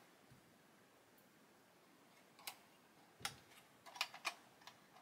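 About half a dozen faint, sharp clicks and taps, spaced irregularly through the second half, from small plastic scale-model parts being handled.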